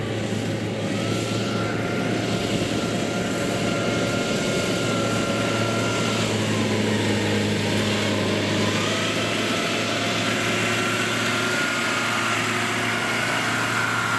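Engine of a tracked rice-hauling carrier running steadily as it drives heavily loaded with rice, with a thin high whine over the drone.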